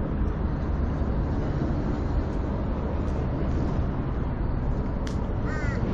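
Steady low rumble of background noise, with a crow starting to caw about five and a half seconds in.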